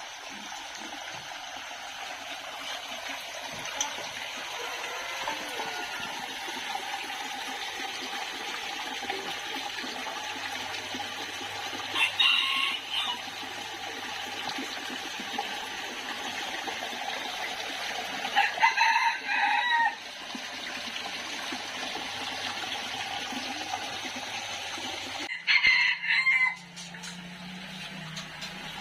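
A rooster crowing three times, each crow lasting about a second, several seconds apart, over a steady background hiss.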